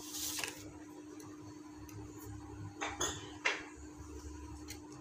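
Handling noise from a toy RC helicopter and its foil-lined cardboard box being moved on a table. There is a scrape in the first half-second, two short rustling scrapes about three seconds in and a few faint clicks, over a steady low hum.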